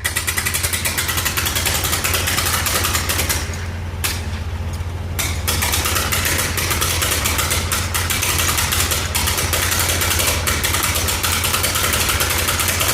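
Construction machine's diesel engine running loud and steady soon after a cold start, with a fast, even pulsing clatter over a deep drone. It eases off briefly around four seconds in, then picks back up.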